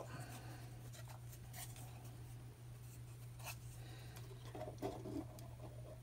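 Faint scratching of a pen tracing around the edge of a plastic cubby hole onto a sheet of ABS plastic, with light rubbing and small ticks as it goes.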